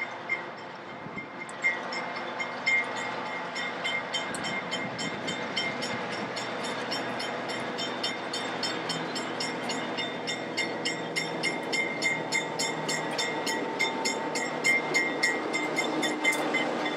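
Narrow-gauge diesel locomotive hauling passenger cars, its engine running as it approaches and draws alongside. Rapid clicking of wheels over rail joints comes faster and louder in the second half.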